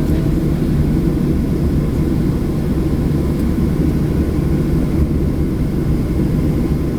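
Steady drone of an airplane in flight heard from inside the cabin: engine and airflow noise, low and even throughout.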